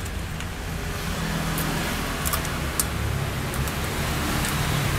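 Steady street traffic rumble from passing vehicles, with a few light clicks about two to three seconds in.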